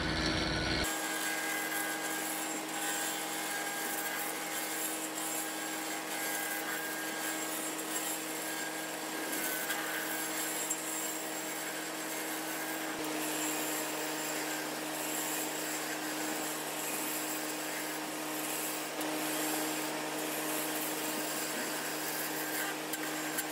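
Wood lathe running steadily while a turning tool cuts a spinning hickory blank down into a handle, the cutting making a constant hiss of shavings over the lathe motor's steady hum.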